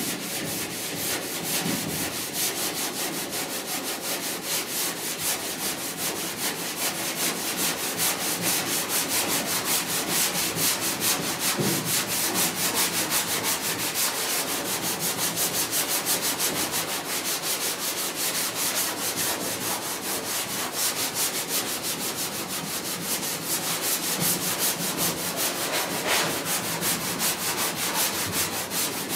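Hand block sanding: a long sanding block with 180-grit paper rubbed back and forth in steady strokes over primer on body filler on a truck cab panel. This is rough blocking of the first primer coat to show up the low spots.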